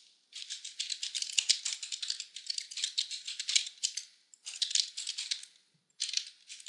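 Fast typing on a computer keyboard: a dense run of key clicks, broken by two short pauses.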